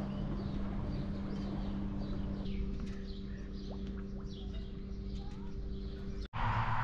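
Small birds chirping, many short high calls one after another, over a steady low hum. The sound cuts out briefly near the end.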